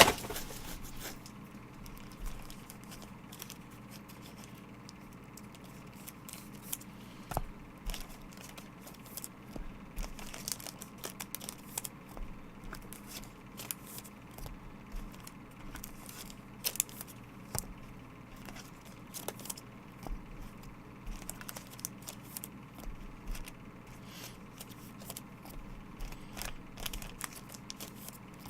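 Trading card packaging being torn and crinkled open, with scattered clicks and rustles from handling the box, wrapper and cards.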